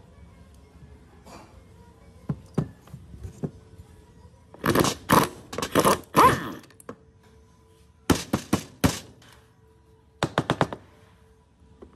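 Impact wrench hammering in three short groups of bursts, the longest near the middle, as it loosens the flywheel nut on an old Husqvarna chainsaw's two-stroke engine. A few light knocks come before the first burst.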